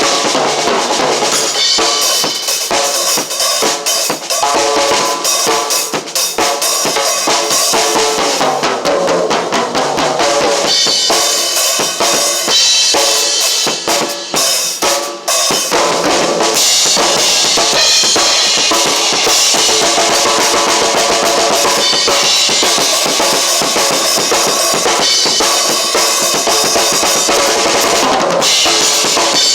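Drum kit being played continuously: kick drum, snare hits and cymbals in a steady groove, with a brief break around the middle.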